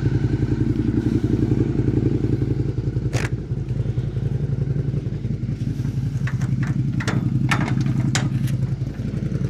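Suzuki SV650's 645 cc V-twin idling steadily through a cat-deleted MIVV replica slip-on muffler, a bassy exhaust note. A few brief sharp clicks and knocks sound about three seconds in and again between six and eight seconds.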